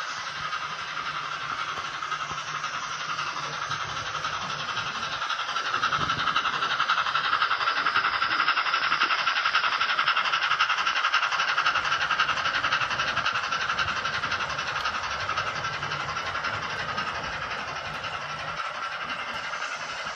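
Digital steam-locomotive sound from a Zimo MS450R sound decoder in a Hornby OO-gauge A3 Pacific model, playing a steady run of chuffs through its small speaker as the model runs. It is louder for several seconds in the middle, as the locomotive comes close.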